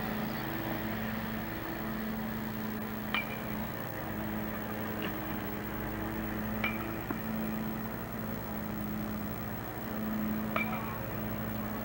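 Aluminium baseball bat hitting balls: three sharp, ringing pings about three and a half seconds apart, with a couple of fainter knocks between them, over a steady low hum.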